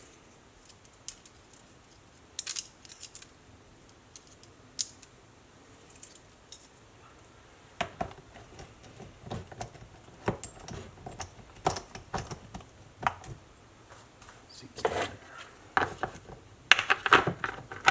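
Small metallic clicks and clinks, sparse at first and busier in the second half with a quick cluster near the end: a chainsaw's bar and chain being handled and fitted back onto the saw, the chain links rattling.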